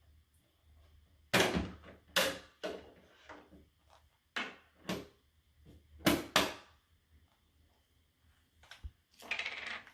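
Handling of toy packaging: a series of short, sharp rustles and knocks as the next surprise toy is unwrapped, with a longer rustle near the end.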